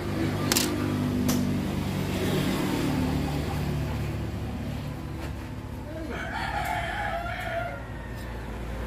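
A rooster crowing once, about six seconds in, for about a second and a half. Before it, a low hum that fades away by about four seconds in, with two sharp clicks near the start.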